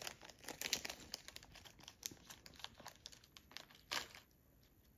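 Small resealable plastic bag crinkling as it is handled and opened, a run of faint crackles with the loudest one about four seconds in.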